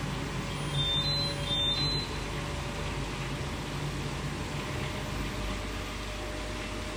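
Beko WMB71643 PTSI front-loading washing machine running, a steady hum and hiss; a low hum is stronger in the first two seconds, then eases off.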